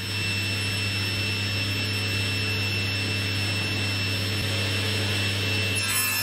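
Table saw running freely with no wood in the blade: a steady motor hum with a high whine. Near the end the sound changes as the blade starts cutting into the next strip of wood.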